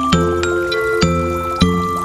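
Background music: a bright melody of high notes over low bass notes, with new notes coming about every half second.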